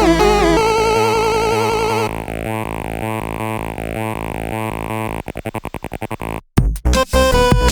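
Electronic background music: synthesizer notes with a wavering vibrato, then a chopped, stuttering passage that speeds up, a brief cut-out about six seconds in, and the fuller music coming back.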